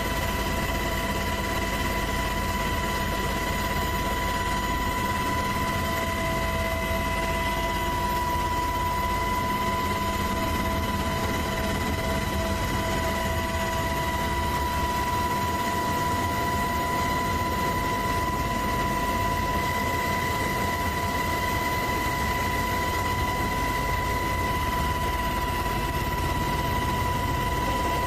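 Helicopter in steady flight heard from inside the cabin: a constant engine and rotor drone with a steady high whine.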